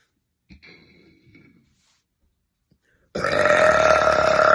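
A woman burping: a faint short sound about half a second in, then a long, loud burp held at a steady pitch from about three seconds in.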